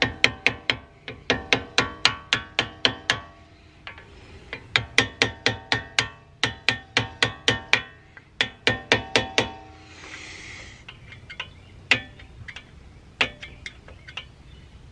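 A hammer taps the steel pad-retaining pin into a Brembo brake caliper, and the metal rings with each strike. The taps come in quick runs of about five a second with short pauses between. A brief hiss comes about ten seconds in, followed by a few slower taps as the pin seats.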